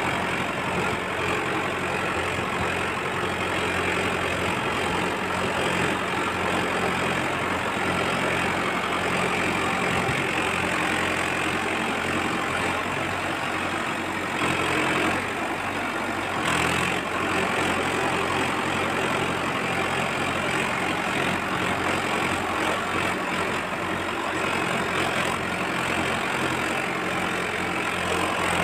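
Tractor engine sound running steadily at idle, with two brief knocks about halfway through.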